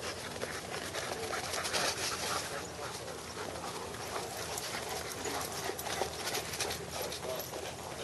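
A German Shepherd and a boxer playing rough on dirt: dog panting with a busy run of short scuffling, scratchy sounds from the tussle.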